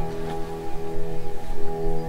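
Background music with calm, held notes.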